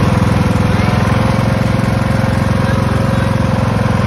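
Craftsman riding lawn tractor's engine running steadily, a fast even pulsing throughout.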